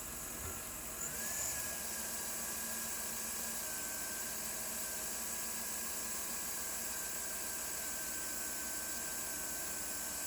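2011 Chevrolet Avalanche's V8 engine idling steadily, with a thin whine over the hum that rises slightly in pitch about a second in and then holds.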